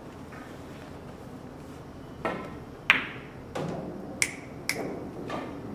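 Pool balls on a billiard table: about two seconds in, a cue tip strikes the cue ball, and a moment later comes a sharp, loud click as the cue ball hits an object ball. Several lighter clicks and knocks follow over the next couple of seconds as the balls strike the cushions and a ball drops into a pocket.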